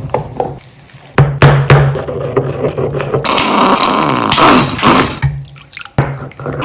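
Slime being squeezed and crushed: wet squelching and crackling, with sharp cracks about a second in and again near the end.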